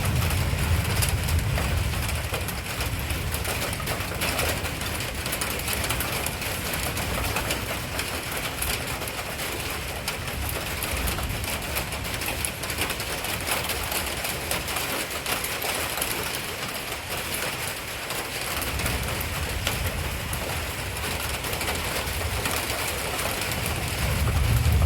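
Steady rain falling, with a low rumble during the first few seconds and again near the end.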